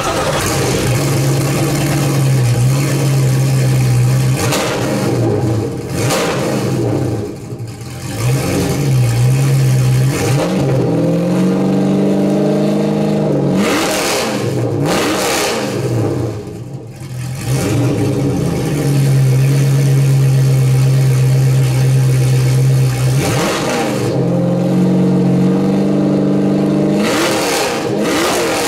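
Mazzanti Evantra's 7.0-litre V8 idling while parked and being revved over and over. Throttle blips rise and fall from a steady idle, with a longer stretch of held higher revs about eleven to thirteen seconds in.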